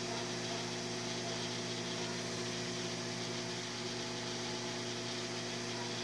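Microwave oven running with its outer cover off: a steady electrical hum over the cooling fan's rush while it heats a cup of water. The magnetron is working, confirming only the fuse had failed.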